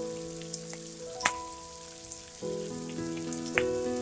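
Chopped onions and green chilies sizzling in hot oil in a frying pan, a steady crackle with a few sharper pops. Soft background music with held notes plays underneath.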